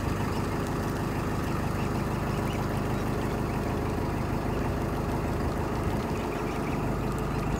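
Narrowboat's diesel engine running steadily, a low even drone.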